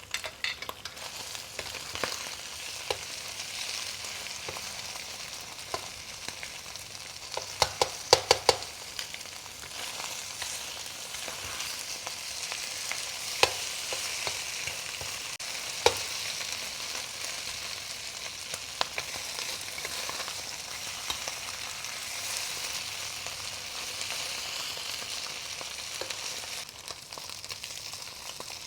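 Cubes of radish cake and beaten duck egg sizzling steadily in hot oil while being stir-fried, with the spatula scraping. About eight seconds in comes a quick run of sharp knocks of the spatula against the pan, and two more single knocks come later.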